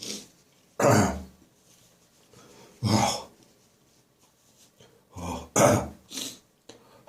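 A man's dry coughing, gagging and throat clearing in separate harsh bursts, the loudest about one, three and nearly six seconds in. It is a lingering post-bronchitis cough working to bring up the remaining phlegm.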